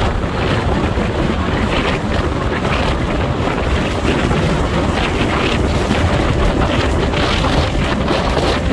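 Wind rushing past a moving car and buffeting the microphone in a loud, steady rumble, with road noise from the tyres underneath.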